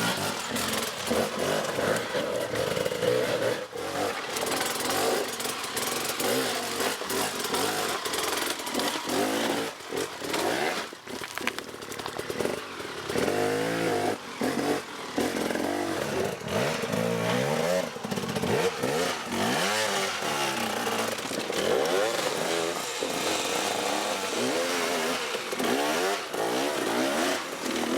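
Dirt bike engines running hard, their pitch repeatedly climbing and dropping as the riders accelerate and back off, with frequent sudden breaks in the engine note.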